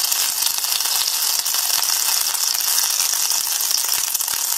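Sliced onions and green chillies sizzling in hot oil in a frying pan: a steady hiss with many small crackles.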